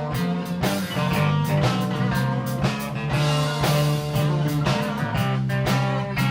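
Live blues band playing an instrumental shuffle in G minor: guitar over bass and a steady drum beat.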